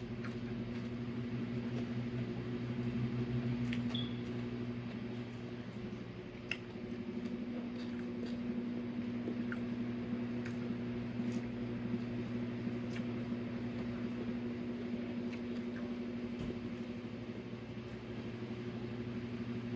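A steady low electrical hum, like a fan or appliance running, with faint scattered clicks and smacks of someone chewing and eating.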